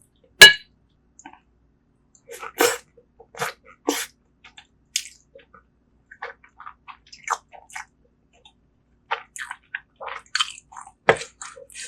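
Close-miked eating sounds: scattered wet chewing and squishing of braised seafood. A sharp clink about half a second in is the loudest sound, and another sharp click comes near the end.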